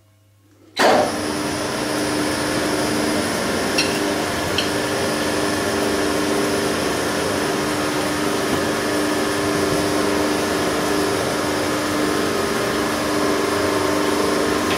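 Metal lathe switched on about a second in, its spindle then running steadily at about 530 rpm with no cut being made: a steady mechanical hum with a whine.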